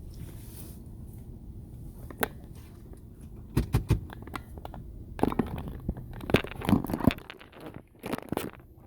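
Irregular clusters of sharp clicks, knocks and crunches, as of things being handled and moved, over a low steady rumble.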